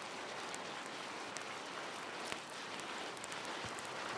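Faint steady hiss with a few small, scattered crackles, the natural sound of a pahoehoe lava flow pouring over a rock ledge.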